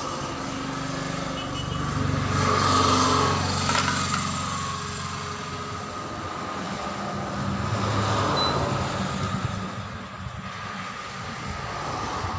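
Motor vehicle engine noise, steady humming that swells about two seconds in and again around eight seconds.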